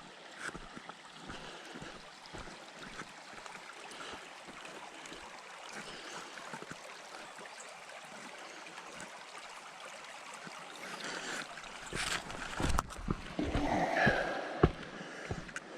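Steady rush of a flowing stream. In the last few seconds footsteps on the trail come in louder over it.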